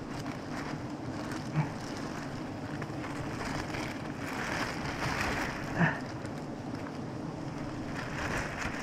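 Wild giant honeybees buzzing in a steady, low hum around a cut-open comb, with a plastic bag crinkling as the honeycomb is handled. Two brief louder sounds come about 1.5 and 6 seconds in.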